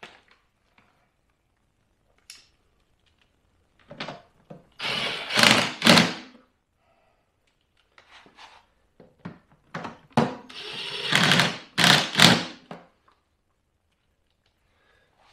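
Cordless power driver running in short bursts, starting about four seconds in and again in a longer cluster about ten seconds in, driving in the screws that hold the generator's spark arrestor cover, with small clicks and knocks in between.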